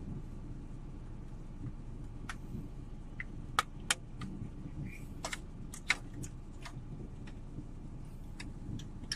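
Sharp plastic clicks and snaps, about eight at irregular intervals, as a plastic pry tool works the retaining clips of an Audi factory radio unit and the unit is pulled free of the dash. A steady low hum runs underneath.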